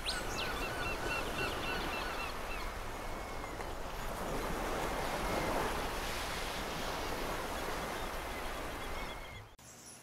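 Outdoor nature ambience: a steady rushing noise like wind or distant surf, with a small bird chirping rapidly and faintly over the first two seconds or so. The ambience fades out shortly before the end.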